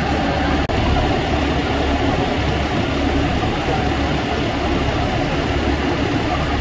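Scania fire pumper's diesel engine running steadily at a constant speed, driving the fire pump that feeds the hose lines.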